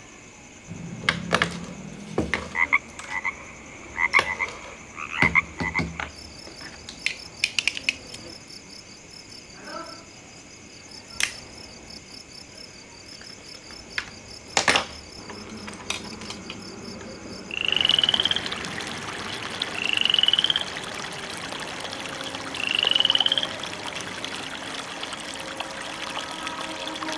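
Small plastic and metal model parts clicking and knocking as they are handled and fitted. About two-thirds of the way in, water starts running down a small model channel onto a paddle wheel, a steady trickling rush. Over it come three loud rising animal calls, a couple of seconds apart.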